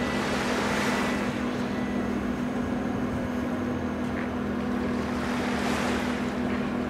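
Steady low hum of the MV Salish Orca ferry's engines running at the berth, with a rushing noise that swells up and fades twice.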